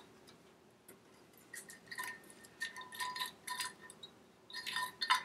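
Light metallic clinks and ticks of a cam chain being fed up through the cylinder and head during a top-end rebuild, its links tapping against the engine's metal. Sparse at first, then a busier run of clinks from about a second and a half in.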